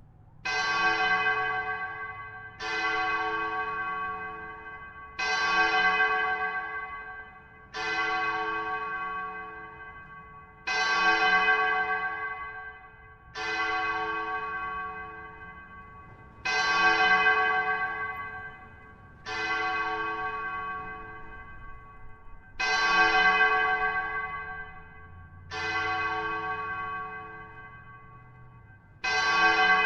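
A single bell rung steadily, one stroke about every two and a half to three seconds. Each stroke hangs on and fades before the next.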